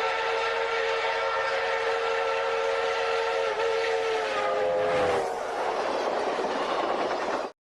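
Train whistle blowing one long blast of several tones sounding together, sagging slightly in pitch as it dies away about five seconds in. A rushing noise follows and cuts off suddenly near the end.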